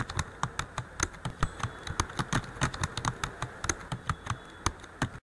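Typing sound effect: quick, uneven keystroke clicks, about six a second, that stop abruptly near the end.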